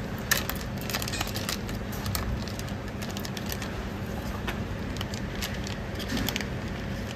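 Crinkling and crackling of a plastic anti-static shielding bag being handled and opened, over a steady low hum.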